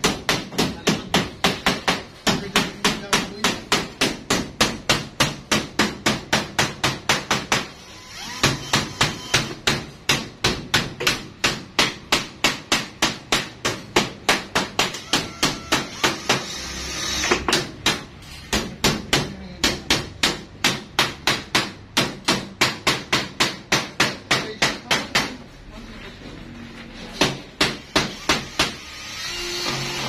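Hammer blows on a galvanized sheet-metal HVAC duct, a fast steady series of about three to four sharp strikes a second, stopping briefly a few times and starting again.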